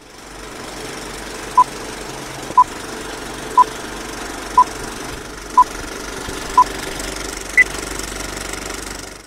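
Old film projector running with a steady clatter under a countdown leader's beeps: six short beeps a second apart, then one higher beep. It all cuts off suddenly at the end.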